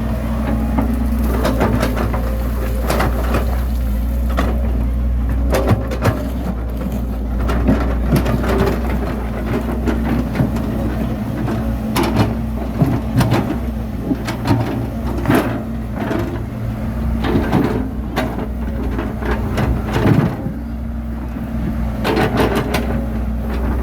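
Bulldozer's diesel engine running steadily, with frequent sharp clanks and knocks as it works pushing soil.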